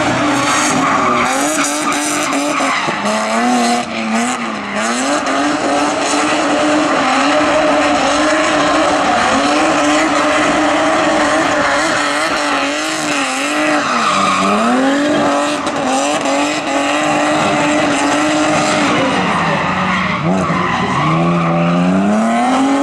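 BMW E46 3 Series drift car's engine held at high revs while sliding sideways, its pitch dipping several times and climbing back, over continuous tyre squeal as the rear tyres spin and smoke.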